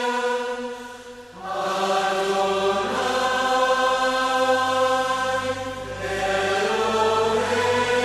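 Slow worship music: long held chanted voices with sustained instrumental backing. There is a short dip in level about a second in, then a new held chord enters with a low bass underneath.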